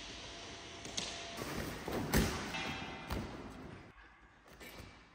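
A few dull thumps on a gymnastics balance beam as a man in socks moves and bounces on it. The thumps come about one, two and three seconds in, and the middle one is the loudest.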